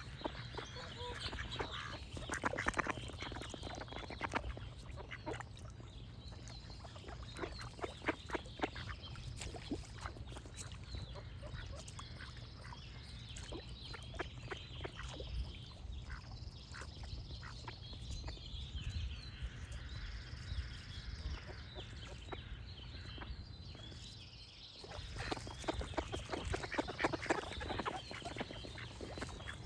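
Ducks quacking in quick runs of short calls, busiest near the start and again in the last few seconds, with songbirds singing thin high notes in the quieter middle and a steady low hum underneath.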